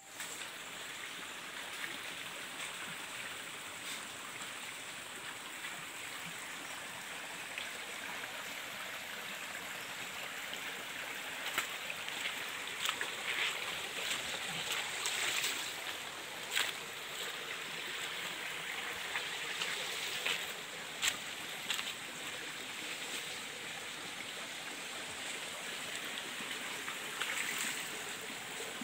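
Shallow stream running over rocks, a steady rush of water, with a scattering of short knocks and clicks in the middle.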